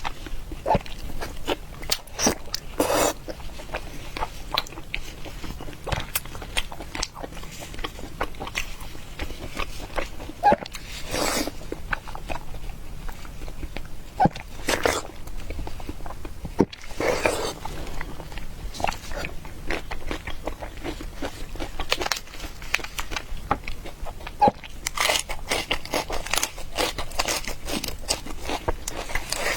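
Close-miked eating: wet chewing, biting and mouth clicks in a steady run, with a few longer, louder noisy bites or slurps scattered through.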